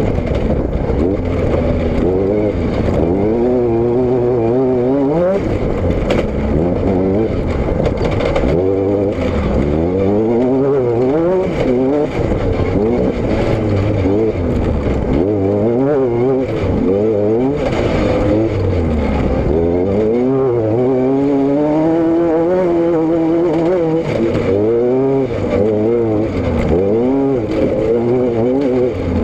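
Vehicle engine running under way, its pitch repeatedly climbing over a few seconds and then dropping back, as when accelerating and easing off or changing gear.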